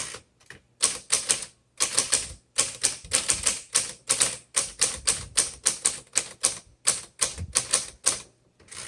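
Manual typewriter being typed on: sharp clacking keystrokes in quick runs, several a second, with short pauses between runs.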